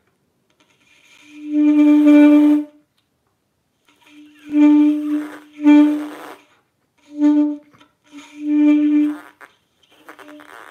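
Alto saxophone blown with very little bottom lip cushioning the teeth against the reed: about five short, breathy, halting attempts at the same low note, each starting and cutting off again. The faulty embouchure keeps the reed from vibrating freely.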